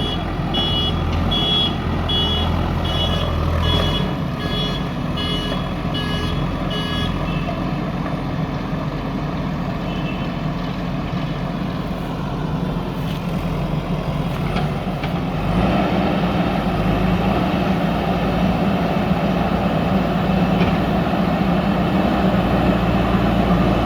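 JCB backhoe loader's diesel engine running, its reversing alarm beeping steadily for the first seven seconds or so. About halfway through, the engine gets louder and stays up as it takes on load.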